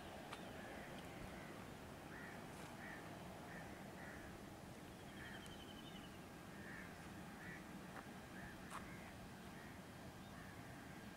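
Birds calling: a string of short calls, a few to the second at times, over a faint steady rush.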